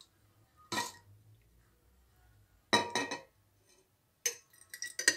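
A metal spoon clinking against an enamel pot and a small glass jar as thick strawberry jam is spooned into the jar. There are a few short clinks with a brief ring, then a cluster of lighter ticks near the end.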